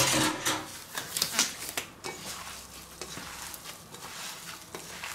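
Soft wet squishing and rustling of a hand working minced meat and spices together in a stainless steel bowl, with a few light knocks near the start.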